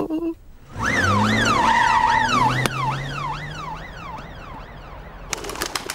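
Police car siren wailing quickly up and down over a running engine, starting about a second in and fading away. A few sharp clicks come near the end.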